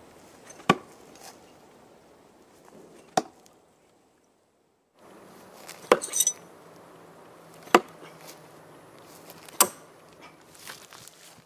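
Spets-5 B.R.U.T steel throwing knives striking and sticking into the end grain of a wooden log target: five sharp thuds, one to two and a half seconds apart. One strike is followed by a brief metallic ring.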